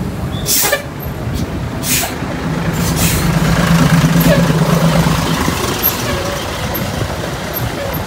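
Tour bus pulling away: three short hisses of compressed air from its air brakes in the first three seconds, while its diesel engine drone swells for a couple of seconds in the middle.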